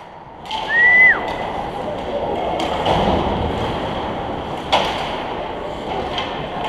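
Rink noise of an ice hockey game: a steady din from the arena with sharp stick-and-puck clacks, the clearest about five seconds in. About a second in comes a short high-pitched call that rises slightly and then falls.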